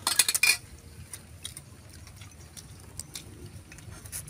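A brief slurp of food from a bowl at the start, then scattered light clicks of chopsticks and utensils against bowls and steel pots.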